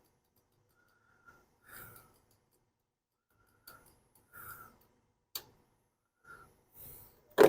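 Quiet handling while wiring is traced and tested: a few light clicks and soft breaths, then a sharp click near the end.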